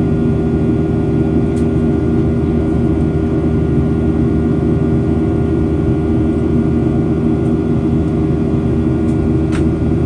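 Inside the cabin of a Boeing 737-800 in flight: its CFM56-7B turbofan engines and the airflow make a steady, unbroken drone with a constant hum. A faint click comes near the end.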